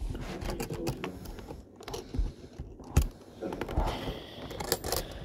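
Irregular clicks, knocks and scrapes of small objects being handled close to the microphone, with one sharper knock about three seconds in.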